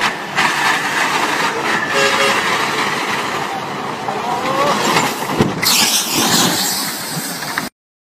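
Heavy tanker truck driving through mud, its engine and road noise heard as a rough, noisy recording, with a few voices. A louder rushing noise starts about five and a half seconds in, and the sound cuts off suddenly near the end.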